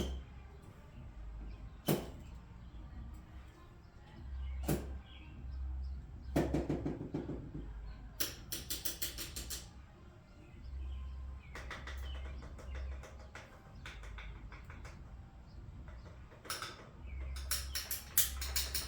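Hand-tool work on an ATV: a few sharp knocks, then two runs of rapid, evenly spaced clicking, like a ratchet being worked. A low rumble comes and goes underneath.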